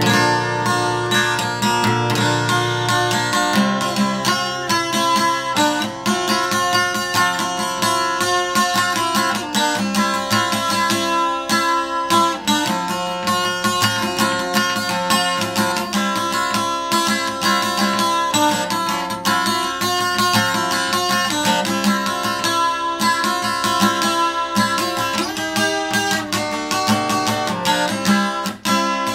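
Acoustic guitar strummed in a steady rhythm, chords changing every few seconds.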